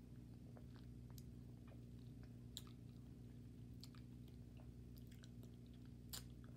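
Faint wet mouth clicks and smacks of someone eating a big spoonful of runny applesauce, scattered irregularly over a steady low hum.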